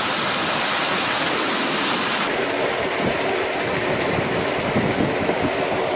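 Steady rush of water pouring over a small concrete drop and flowing along a concrete irrigation canal. The sound turns a little less hissy about two seconds in.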